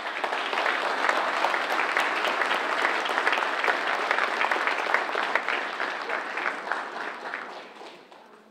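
Audience applauding, many hands clapping together, dying away over the last couple of seconds.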